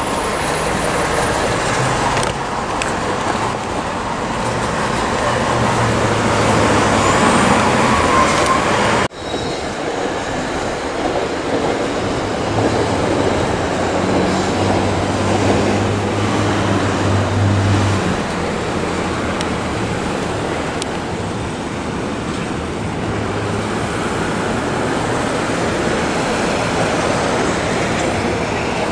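Street traffic: a steady wash of road noise with engine hum from passing cars and trucks swelling and fading. The sound breaks off abruptly about nine seconds in and picks straight back up.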